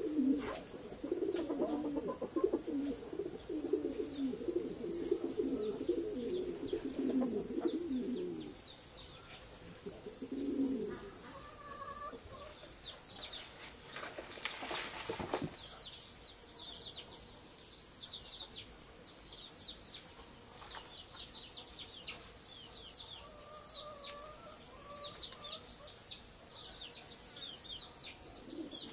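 Birds calling: a run of low, rapid calls for the first eight seconds or so, then many quick high chirps, each falling in pitch, from about twelve seconds in.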